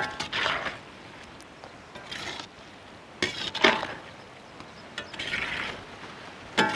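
A perforated metal ladle scraping and clinking against an iron kadai as it stirs a thick, wet clam roast masala, in repeated short strokes about every second or so.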